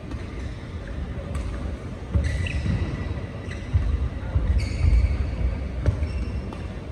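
Badminton rally: sharp racket strikes on the shuttlecock roughly every second, shoes squeaking on the synthetic court mat, and heavy thumps of footwork and lunges on the court floor, echoing in a large hall.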